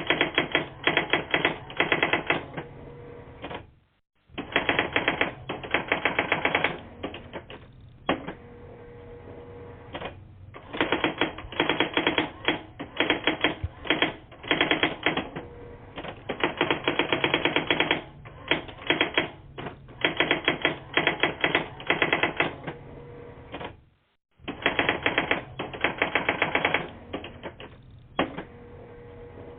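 Rapid mechanical clicking in runs of a second or two with short pauses between, like a typewriter being typed on, heard through a phone line's narrow, muffled sound. The line drops out to silence briefly twice, about four seconds in and again near twenty-four seconds.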